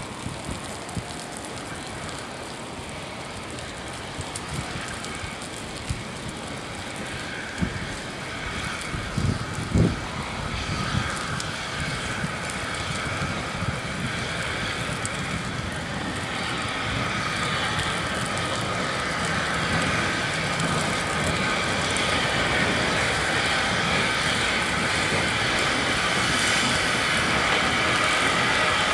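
Steam tank locomotive, the LNWR coal tank 0-6-2T, coming slowly along the platform, its steam hiss and running noise growing steadily louder as it nears. A few sharp knocks about eight to ten seconds in.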